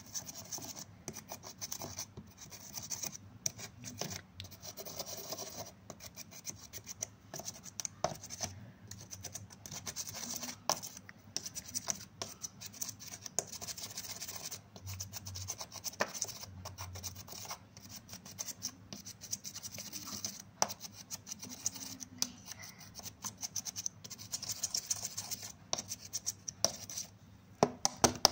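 Pressed eyeshadow being scraped and dug out of a palette's pans with a small tool: continuous dry scratching and rubbing, dotted with small clicks as the powder cake crumbles.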